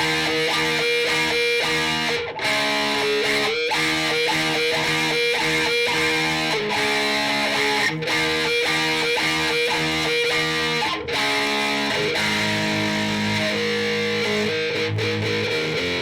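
Ibanez S470 electric guitar playing a riff of quickly repeated picked notes and chords that change every few seconds, with a few brief breaks.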